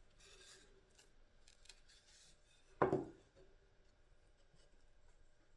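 Quiet handling of wooden box parts with faint rubbing and small clicks, then one sharp knock about three seconds in that rings briefly and dies away.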